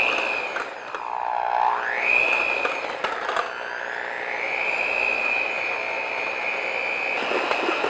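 Electric hand mixer running, its beaters whipping egg whites in a stainless steel bowl toward stiff peaks. The motor's whine dips sharply in pitch about a second in and climbs back, then holds steady.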